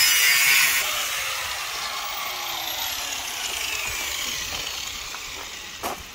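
Electric angle grinder with a cut-off wheel cutting through a car hood's sheet metal, released about a second in and winding down with a slowly falling whine. A light knock near the end.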